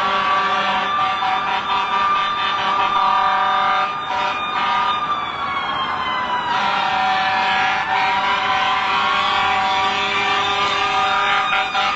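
Several emergency-vehicle sirens wailing at once, their overlapping pitches sliding slowly down and back up.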